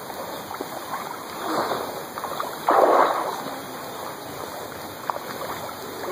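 Water splashing as swimmers move about in a pond, with one sudden louder splash near the middle.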